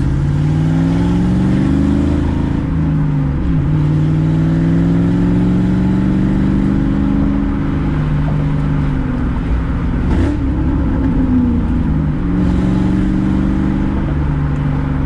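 Roush Mustang V8 engine running and being revved, its pitch rising and falling several times. It has a misfire, which the owner traces to a failing coil pack and loose spark plug boots.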